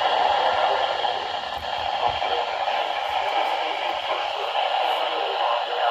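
Weather radio receiver giving out a steady hiss of static with no broadcast voice coming through, a few faint ticks in the noise.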